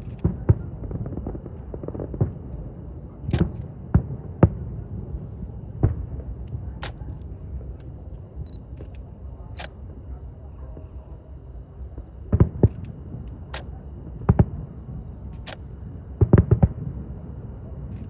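Fireworks going off: sharp cracks and deeper booms of shells bursting at irregular intervals, a few seconds apart, with quick clusters of booms about a third of the way in, around two-thirds through and near the end. The bursts sit over a steady low rumble.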